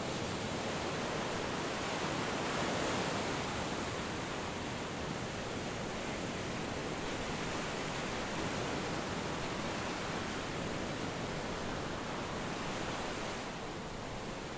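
Steady, even rushing noise with no tones or beat, swelling slightly a couple of seconds in and dipping a little near the end.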